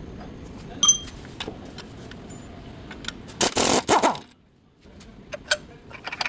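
Scattered sharp clicks and clinks, with a louder scraping rush lasting under a second about three and a half seconds in, followed by a sudden brief silence.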